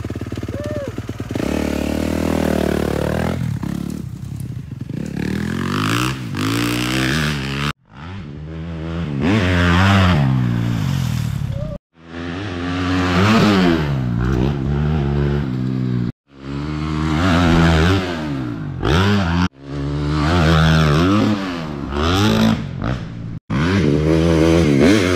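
Dirt bike engine revving up and down over and over as the rider tries to pop wheelies. The sound breaks off abruptly every few seconds, as between short clips cut together.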